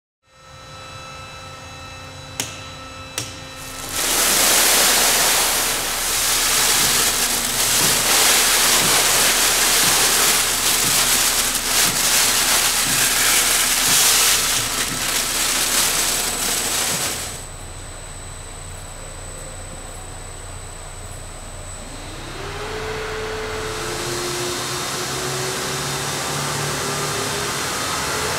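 Granular material poured from a bag into a stainless steel hopper, a loud steady rushing noise for about thirteen seconds that stops abruptly. Over a steady background hum, the screw feeder's auger motor then starts with a rising whine and keeps running, set off by the hopper's automatic level detection.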